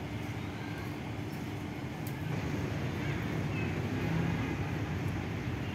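Road traffic as a steady low rumble, a little louder from about two seconds in.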